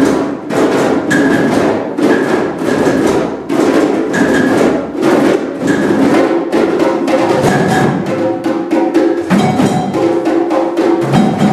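A group of djembe-style hand drums played together in a fast, dense rhythm, with a higher-pitched knock marking the beat about once a second.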